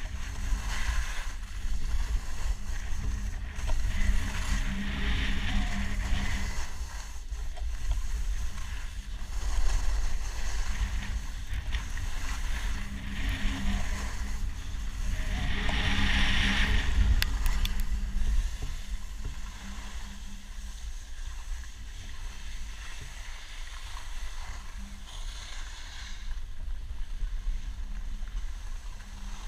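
Skis scraping and hissing over packed snow with wind rumbling on an action camera's microphone during a downhill ski run, with a loud surge of scraping about two-thirds of the way through. It grows quieter over the last third as the skier slows to a stop.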